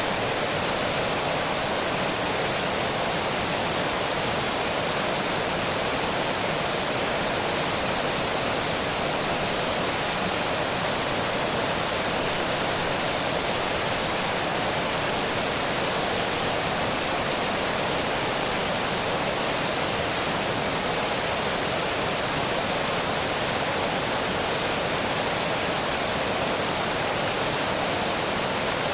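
Water pouring over a small dam, a steady, unbroken rush that is more hiss than rumble.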